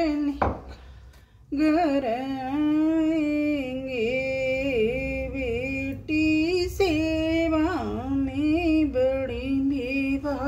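A woman singing a folk song in a Rajasthani-Haryanvi dialect, one voice drawing out long, wavering held notes; she pauses briefly near the start, then sings on without a break.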